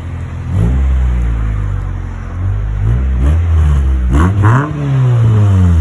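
Car engine breathing through a newly installed aftermarket exhaust with its silencer insert still fitted, revved several times. Each rev rises and falls back toward idle.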